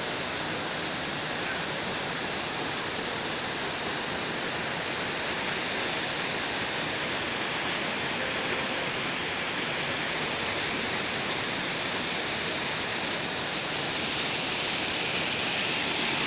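Neer waterfall: water pouring and splashing as a steady rushing hiss, growing a little louder near the end.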